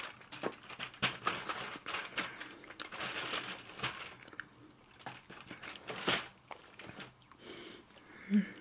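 A chocolate from an advent calendar and its foil and card handled close to the microphone: irregular crinkling, crunching and sharp clicks, with chewing.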